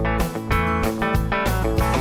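Intro music: an instrumental led by plucked and strummed guitar, with a steady quick beat.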